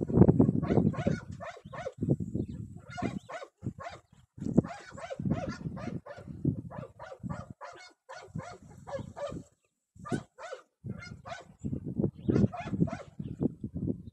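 Dog barking and whining in repeated irregular bursts, with brief pauses.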